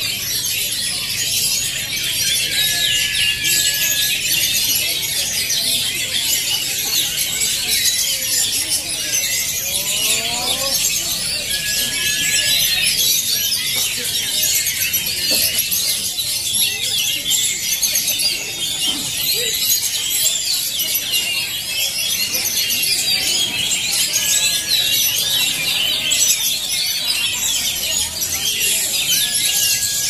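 Many caged Oriental magpie-robins (kacer) singing at once in a contest, a dense, continuous chorus of high, rapid chirps and trills. A few short, level whistle notes stand out from it several times.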